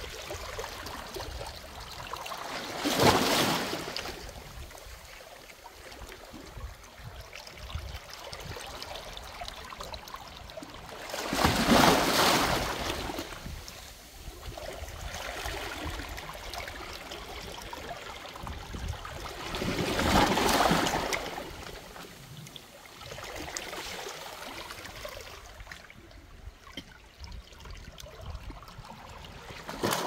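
Small sea waves washing in among boulders on a rocky shore: three surges of rushing water about eight to nine seconds apart, with lapping and trickling water between them.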